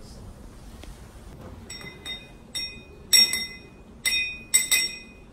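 A drinking glass clinking as a stirrer is knocked around inside it: about eight sharp clinks starting a couple of seconds in, each ringing briefly with a clear glassy tone.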